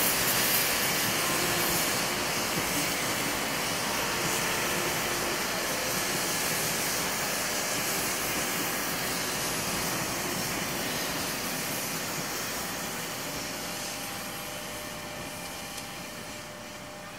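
KRL Commuter Line electric train running past on the adjacent track and drawing away. The steady rush of wheels on rail fades slowly as it recedes.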